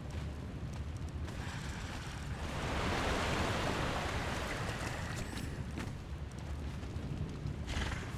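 Rushing water of a waterfall, a steady roar that swells louder for a couple of seconds a few seconds in.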